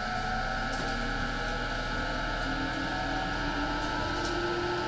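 E217 series electric train's traction motors whining, several tones rising slowly together over a steady high tone as the train picks up speed, over the running rumble of the car.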